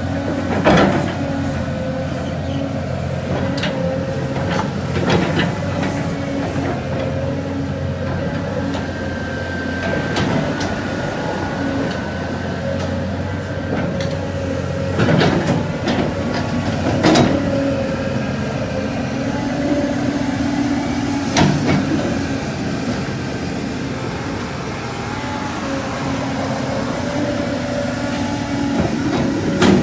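Heavy diesel earthmoving machine, an excavator or backhoe, running steadily, with sharp metal clanks from its bucket and arm every few seconds.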